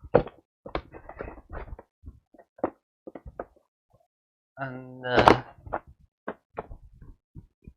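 Irregular knocks and thumps of cardboard fireworks packages being handled and set down, with a short pause partway through.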